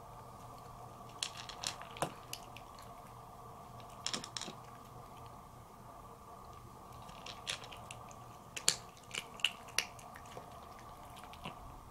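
A Siamese kitten eating dry kibble: clusters of sharp crunches as it bites and chews, coming in bursts a few seconds apart, over a steady faint background hum.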